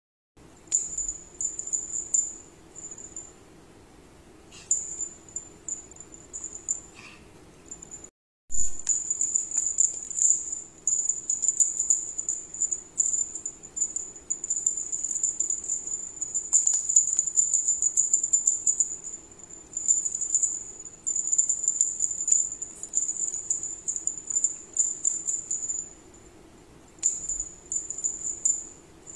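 A small bell on a cat's feather wand toy jingles in irregular bursts as the toy is jiggled and batted. The sound cuts out completely for a moment about eight seconds in.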